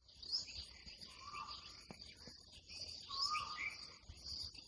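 Early-morning birds chirping: a short whistled phrase comes back about every two seconds among other quick chirps, over a steady high-pitched buzz.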